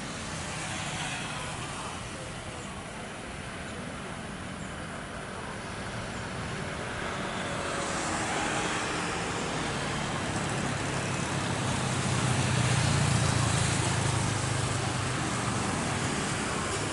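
Jet airliner engines, a rumbling roar with a low hum that slowly grows louder and peaks about thirteen seconds in, then eases slightly.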